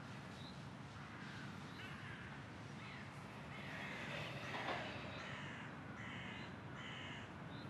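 Faint birds calling in the open: scattered short calls, then a run of harsher repeated calls from about five to seven seconds in.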